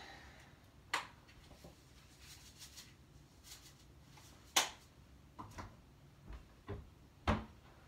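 A few sharp knocks and clicks in a kitchen, about a second in, a little past halfway (the loudest) and near the end, with fainter clicks between: someone off camera handling cupboards and containers while fetching salt.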